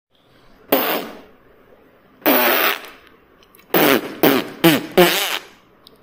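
Six fart sounds with a wavering pitch: two single blasts about a second and a half apart, then four more in quick succession.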